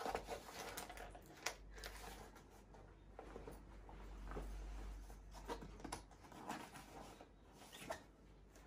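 Steerhide leather jacket rustling as it is handled and its fronts are pulled open and closed: faint, irregular rubs and scuffs of the leather.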